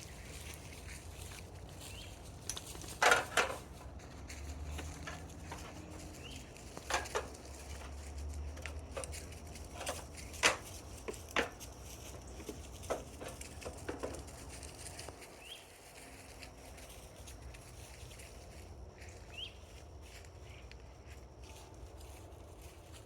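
Scattered sharp knocks and clicks from handling PVC pipe and fittings while gluing and fitting them, over a low background rumble, with a few faint short chirps.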